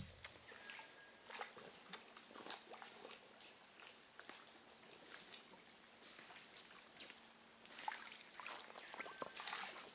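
Jungle insects droning steadily in a high, even pitch, with faint scattered clicks and rustles that come more often near the end.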